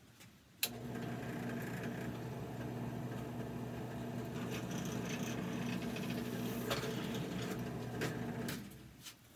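Electric motor of a workshop power tool switched on with a click, running at a steady hum for about eight seconds with a few light clicks over it, then stopping near the end.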